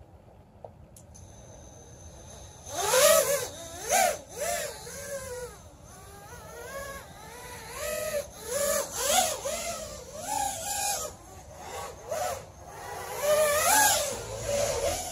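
Racing quadcopter's SunnySky Edge 2305 2480KV brushless motors and propellers: a faint steady high whine from about a second in, then a loud whine that rises and falls again and again as the throttle is punched and eased in flight.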